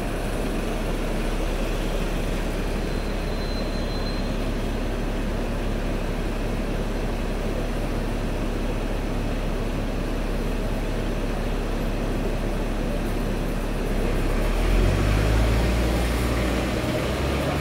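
Hong Kong double-decker electric tram heard from inside: a steady low rumble and hum. A deeper rumble swells about fifteen seconds in, then eases near the end.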